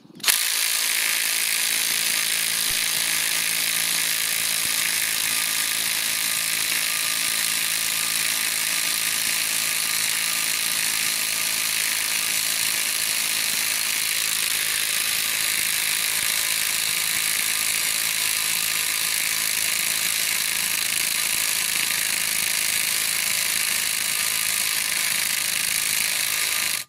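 Parkside X20V Team cordless impact wrench hammering non-stop on a car wheel nut tightened to 161 Nm, a steady high-pitched rattle of rapid blows. It holds an even level for about 27 seconds and cuts off suddenly.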